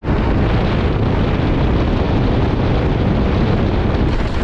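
Wind rush buffeting the microphone on a motorcycle moving at speed, with the low rumble of the Royal Enfield Himalayan under it. The sound is steady and loud.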